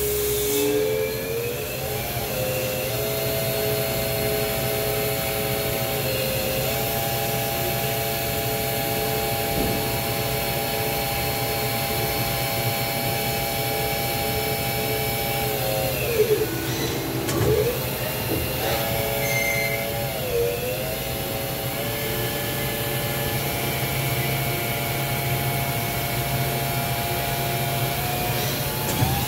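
EMAG VL-3 inverted CNC lathe running inside its enclosure. Its drive whine steps up and down in pitch as the spindle speed changes, dips sharply and comes back up about halfway through, over a steady hiss of coolant spray.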